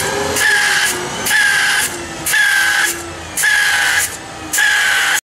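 Spray-plastic road-marking truck's thermoplastic spray guns hissing in regular surges, about one a second, each with a high, slightly falling whine, over a steadier machine noise.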